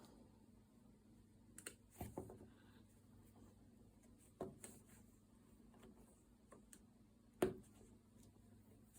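Faint, scattered clicks and light handling noise of a crochet hook picking up loops on a potholder loom during the bind-off, with one sharper click about seven and a half seconds in.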